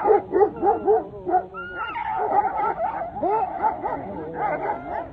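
A pack of stray dogs fighting, ganging up on one dog. Several dogs yelp, bark and whine at once in quick, overlapping calls with no break.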